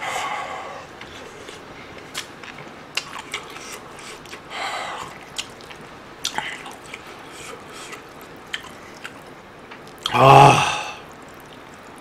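Close-up eating sounds: wet chewing and smacking of ramen noodles and stew, with scattered clicks of chopsticks against the stainless steel pot. A breathy exhale comes at the start and another around the middle, and a short, loud voiced grunt comes about ten seconds in.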